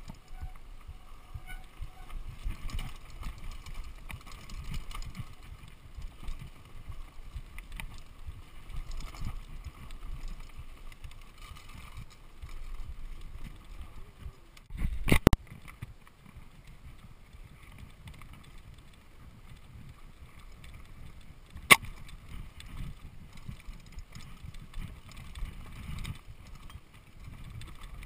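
Mountain bike rolling fast over a wet dirt trail with roots and rocks: a steady low rumble and rattle from the tyres and frame. There are two sharp knocks from the bike, a short clattering one about halfway through and a single crisp one several seconds later.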